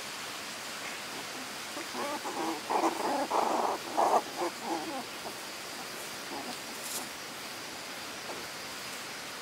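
A quick run of about half a dozen short, rough animal calls about two seconds in, lasting some three seconds, over a steady high insect-like hum.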